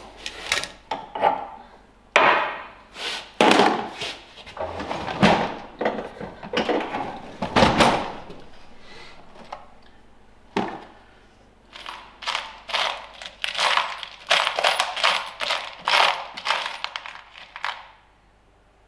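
Steel screws and bolts clinking and rattling as a hand rummages through metal parts trays picking pieces out. It comes in irregular bursts of sharp clinks, with a dense run in the second half, and stops a second or so before the end.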